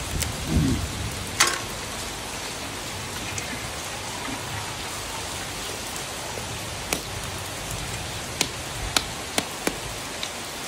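A few sharp clicks and taps of a mud crab and a split-bamboo tong against a tiled floor, over a steady rain-like hiss.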